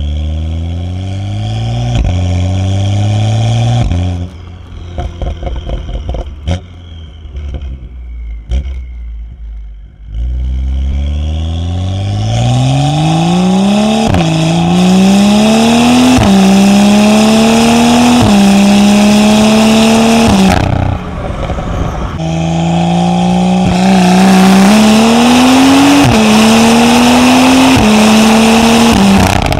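BMW engine and exhaust under hard acceleration through the dual-clutch transmission, heard from the rear of the car. The revs climb in each gear and drop sharply at every upshift, in quick runs of three or four shifts, with the shifts a little bit more audible on the retuned shift settings. Around the middle, during a quieter lift-off, there are a few sharp cracks.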